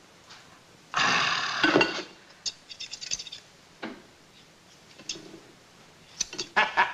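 A loud hiss about a second long, then short scratchy, creaking strokes and a single click as a tough, rubbery pancake is pulled and bitten at. Near the end a man starts snickering.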